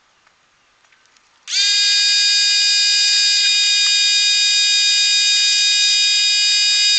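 Electric pressure washer's motor and pump running under the held trigger: a loud, steady high-pitched whine that starts with a short rise in pitch about a second and a half in and cuts off abruptly near the end.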